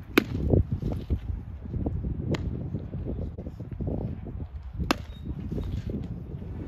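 Three sharp cracks of baseballs striking, about two and a half seconds apart, during catcher drills, over a low rumble.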